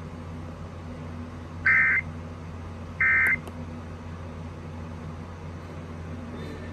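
Emergency Alert System end-of-message data bursts: two short, buzzy digital tone bursts about a second apart, each well under half a second, signalling that the alert test is over. A faint low hum runs underneath.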